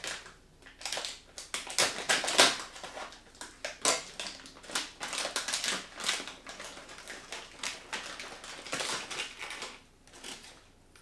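A plastic snack bag crinkling and rustling in the hands as it is pulled open, in irregular bursts of crackling.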